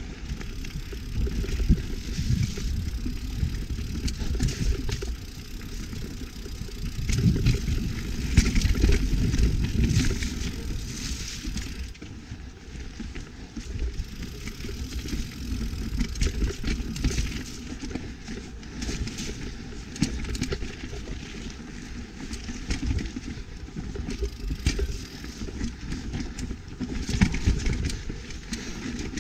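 YT Capra full-suspension mountain bike ridden down rough, rooty singletrack: tyres rolling over dirt and roots, the bike rattling and knocking over bumps, with a low rumble that swells and eases as speed changes.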